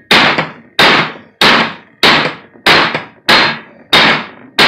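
Heavy hammer striking the steel yoke of an F250 drive shaft's CV head, eight evenly spaced metal blows about two thirds of a second apart, each ringing briefly. The blows are driving out a stubborn U-joint bearing cap.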